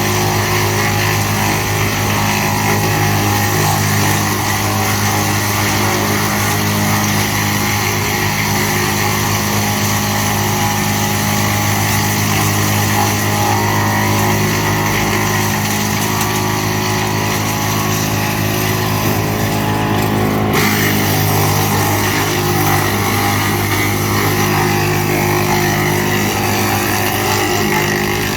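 GL&D M175DS tractor-mounted woodchipper running: a loud, steady machine drone with a hissing top. The sound shifts abruptly about twenty seconds in.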